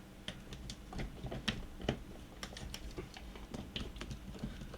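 Irregular light clicks and taps, about four or five a second, from working the coffee grinder's stiff motor shaft and parts by hand as they loosen off.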